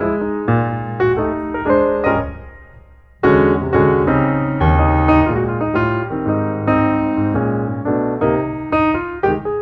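Background piano music, with a brief lull about three seconds in.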